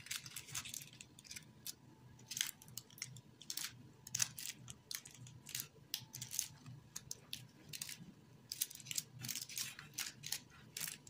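Paper cupcake liners filled with crumbly dough crinkling and rustling in the hands as they are set down one by one in a metal baking tray: a run of short, crisp rustles coming in small irregular clusters.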